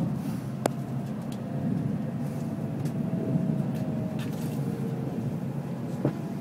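Shinkansen bullet train running, heard from inside the passenger car: a steady low rumble with a faint thin tone above it, and a light click about half a second in and another near the end.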